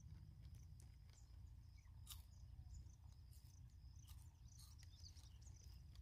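Faint outdoor nature ambience: a steady high insect drone with scattered short bird chirps over a low rumble.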